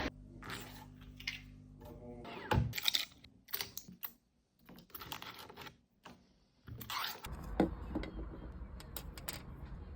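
Irregular light clicks and taps of small 3D-printed plastic parts being handled and fitted together, with two brief quiet gaps in the middle.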